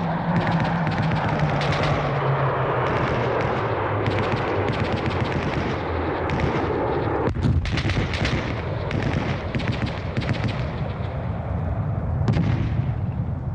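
Sustained gunfire from blank-firing rifles and machine guns, with many rapid cracks and a thicker burst of shots about halfway through. A low steady hum runs underneath and sinks in pitch over the first few seconds.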